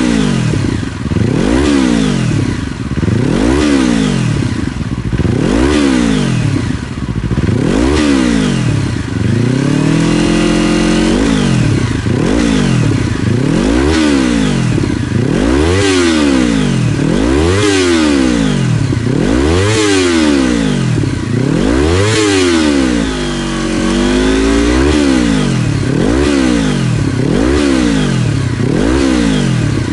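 2022 Yamaha YZF-R25's parallel-twin engine revved over and over through a BEAMS CORSA EVO2 titanium slip-on exhaust, the revs rising and falling about every second and a quarter. Twice, about a third and about three-quarters of the way in, the revs are held a little steadier before the blips resume.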